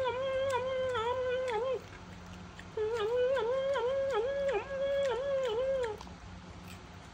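Baby macaque giving a continuous high whining call that dips in pitch two or three times a second, as it feeds. The call breaks off about two seconds in, resumes about a second later, and stops about six seconds in.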